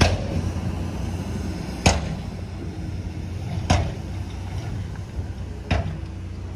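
Heavy diesel machinery running with a steady low rumble, punctuated by a sharp metallic clank about every two seconds, four times in all.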